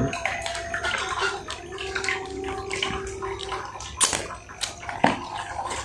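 Tap water running into a bucket, a steady rushing. Two sharp wet clicks about four and five seconds in, from fingers being licked.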